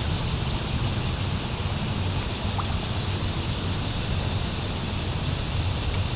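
Steady outdoor noise of wind and water on the microphone, a low rumbling hiss with no distinct events.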